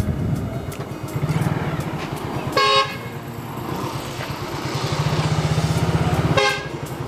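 A small motorcycle engine runs with a steady low pulse while riding. A vehicle horn beeps briefly twice, about two and a half seconds in and again near the end.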